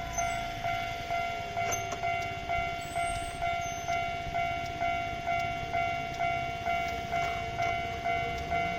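Japanese railway level-crossing warning bell ringing in an even, steady rhythm, a little under two strikes a second, with a train's low rumble underneath.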